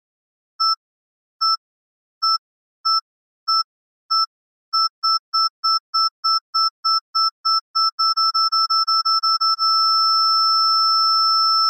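Electronic bomb-timer beeping: short, high, identical beeps, slow at first and speeding up until they come several times a second, then merging about ten seconds in into one steady tone as the countdown runs out.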